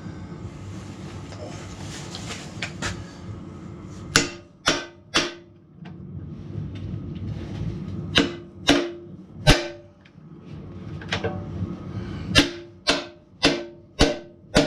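Hammer blows on steel, knocking a part of a Kubota backhoe into place: three bursts of sharp ringing strikes, about eleven in all, the last burst of five quicker strikes. A Polaris heater hums steadily underneath.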